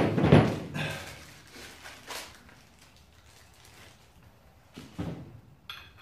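Black steel pipe parts knocked and handled on a wooden worktable: a loud knock at the start dies away over about a second, followed by a few smaller knocks, then a brief high metallic ring near the end.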